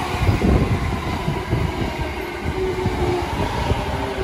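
Electric commuter train rolling past close by along the platform: a steady rumble with uneven low knocks from the wheels and a faint steady hum over it.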